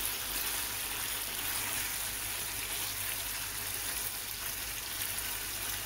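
Chicken simmering in its marinade in a nonstick pan, giving a steady sizzling, bubbling hiss.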